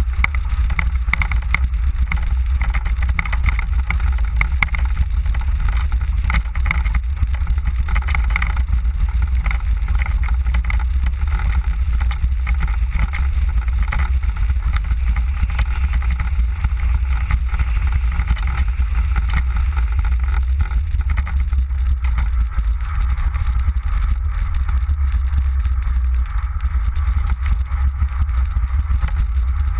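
Mango velomobile rolling along a paved bike path: a steady low rumble of wind and road noise, with a flickering higher hiss and rattle over it.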